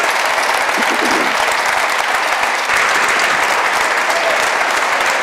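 A chamber of Members of Parliament applauding steadily, greeting a vote that has just carried. A few voices call out about a second in.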